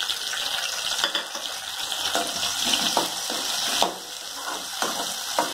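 Freshly added chopped tomatoes sizzling in hot oil with shallots and garlic in a metal kadai. A slotted metal spoon stirs them, scraping and knocking against the pan now and then.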